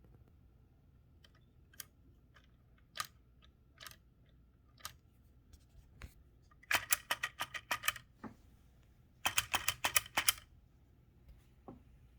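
Manual typewriter typing, most likely the 1960 Olympia SM-4: a few single keystrokes, then two quick runs of about eight or nine typebar strikes each, the second starting about two seconds after the first ends.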